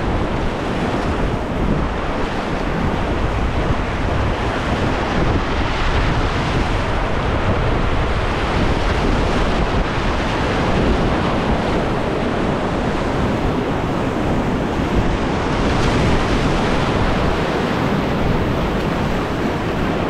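Whitewater rapids rushing steadily and loudly close to the microphone.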